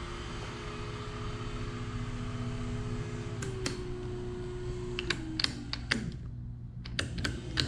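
Electric trolling motor spinning out of the water with a steady humming whine. Its pitch drops in steps as the five-position speed switch is clicked down, and it winds down to a stop about six seconds in. Sharp clicks of the switch knob come with each step and a few more near the end.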